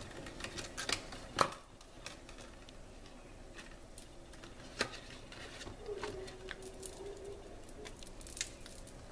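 Handling of a cardstock paper box: soft rustles and light taps of the card, with a few sharp clicks, the loudest about a second and a half in.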